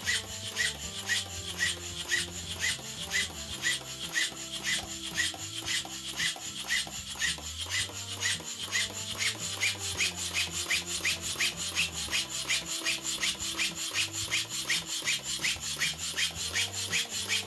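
Homemade triple-expansion steam engine running on a test run, its exhaust puffing in an even, rapid rhythm that gradually quickens from about three puffs a second to about four or five.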